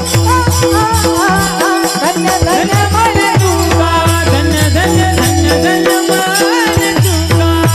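Marathi kirtan music: a melody bending up and down over a steady held drone note, with low drum beats and jingling hand cymbals keeping time.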